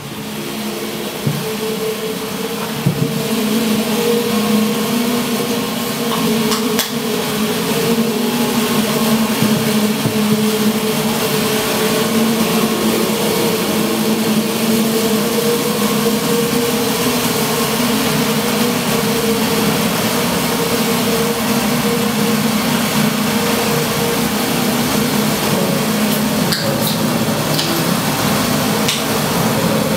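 Improvised electronic soundscape from synthesizer and effects pedals: a dense, noisy drone over two steady low tones, swelling up over the first few seconds and then holding.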